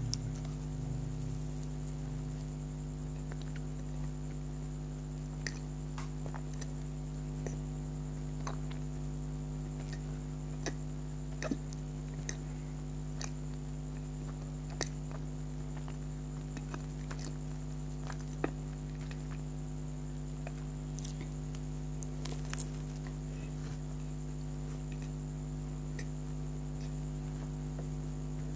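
Soft, sparse mouth clicks and squishes of someone chewing a cream-filled donut, over a steady electrical hum.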